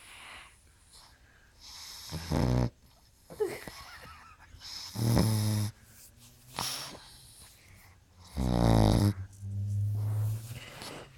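A sleeping pug snoring: several separate fluttering snores, each about half a second to a second long, a couple of seconds apart. Such snoring is typical of the breed's short, flat muzzle.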